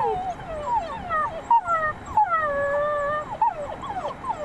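Several wolf pups whining and yipping in short, falling, overlapping calls, with one longer howling call about two seconds in.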